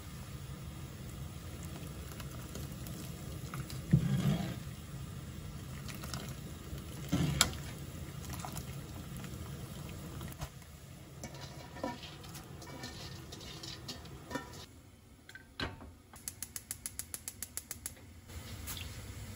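Kitchen cooking sounds: a few sharp utensil knocks over a steady low hum, then near the end a quick, even run of about a dozen clicks.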